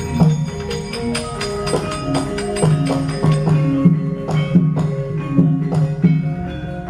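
Javanese gamelan music: metallophones and gongs ringing in changing notes, punctuated by quick sharp metallic clattering strikes of the dalang's kecrek plates.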